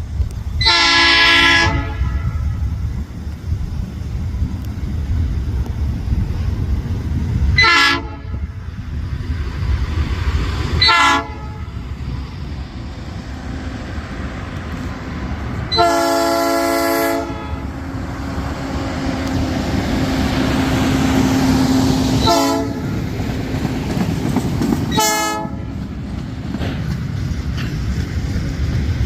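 Nathan P3 three-chime air horn on a Brandt hi-rail truck sounding six blasts: a long one, two short, another long, then two more short, over the steady rumble of the truck running on the rails.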